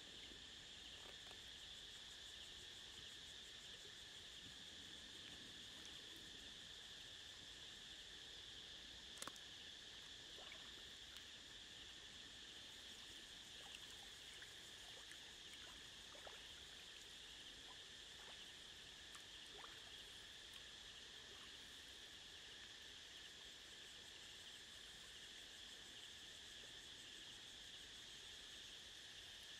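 Faint, steady high-pitched drone of insects, with a few soft clicks and one sharper click about nine seconds in.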